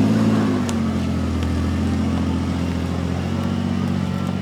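Small engine running at a steady speed, with a brief dip in pitch just after the start.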